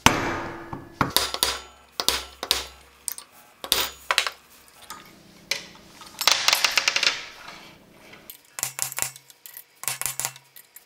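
Metal knocks and clatter from the starter clutch and cup being worked off the flywheel of a Briggs & Stratton flathead: a series of sharp strikes with a short metallic ring, a burst of rattling about six seconds in, and quicker light clicks near the end.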